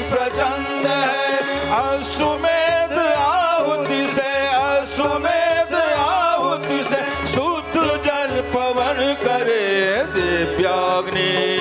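Instrumental interlude of a Hindi devotional song: an ornamented melody with pitch slides over held bass notes and steady hand-drum percussion.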